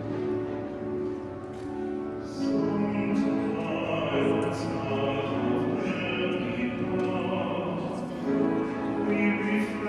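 Classical music in long sustained notes, joined about two and a half seconds in by an operatic-style singing voice.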